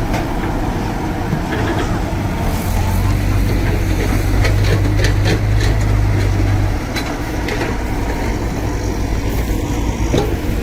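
Heavy diesel earthmoving machinery running with a steady low rumble, working harder for a few seconds in the middle, with a series of sharp knocks and clatter while it labours.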